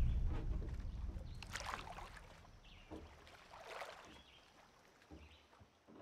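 Faint lake ambience from a film soundtrack: a low rumble fades away, then two soft water sounds come about a second and a half and four seconds in.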